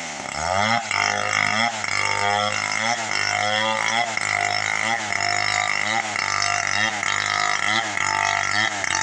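Two-stroke chainsaw engine running, its pitch rising and falling in a regular swell about once a second.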